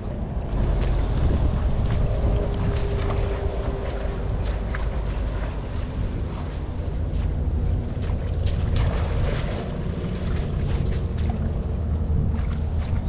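Wind rumbling on the microphone over water splashing and sloshing, with scattered small splashes and knocks.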